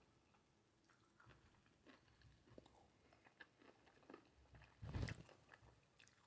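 Faint close-up mouth sounds of a person chewing food: soft scattered wet clicks, with one louder bite about five seconds in.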